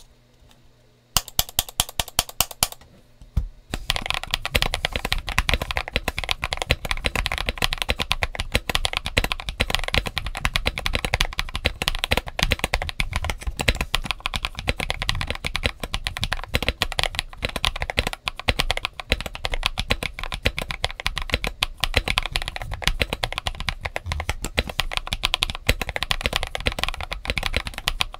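Typing on a stock Mxrskey CK650 aluminium gasket-mount 65% mechanical keyboard with Leobog Ice Soul tactile switches and Feker CSA-profile PBT keycaps. A quick run of keystrokes starts about a second in, pauses briefly, and then gives way to fast, continuous typing.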